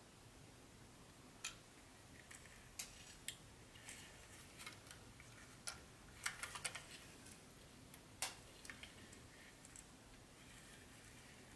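Faint, irregular light clicks and ticks, a dozen or so spread unevenly with a small cluster a little past the middle, over a quiet low hum.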